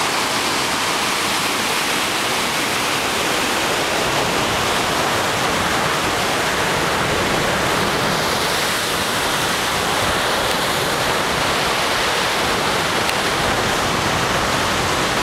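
Ocean surf churning through a narrow rocky channel: a steady, unbroken rush of white water with no separate wave crashes standing out.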